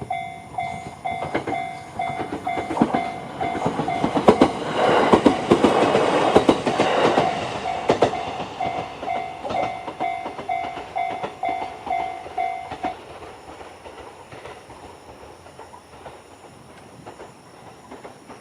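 Electronic level-crossing alarm bell, the JR standard tone, ringing as a steady repeated ding about two times a second while a JR EV-E301 series battery-electric train passes, its wheels clattering over the rail joints, loudest about four to eight seconds in. The bell stops about thirteen seconds in, once the train has cleared the crossing.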